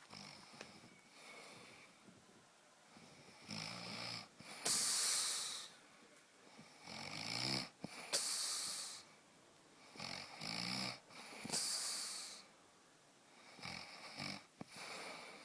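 Sleeper snoring in a steady rhythm, about every three and a half seconds: each cycle is a low buzzing snore followed by a louder hissing breath, four cycles in all.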